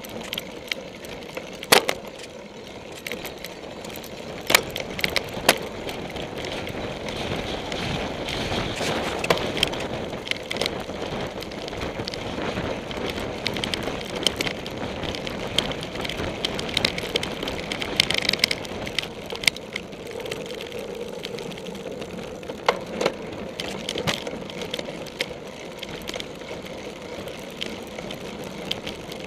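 Cyclocross bike being ridden hard over bumpy grass: a steady rumble of knobby tyres and wind, with frequent sharp rattles and knocks as the bike jolts over the ground.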